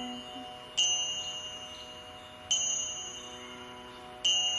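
Instrumental interlude of a devotional hymn: a high, bell-like chime struck three times, about every second and three-quarters, each stroke ringing out and fading, over a steady held drone.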